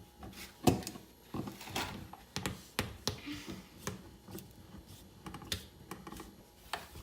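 Irregular light clicks and knocks of hands working on a dryer's electrical receptacle and its wiring box, with one sharper knock under a second in.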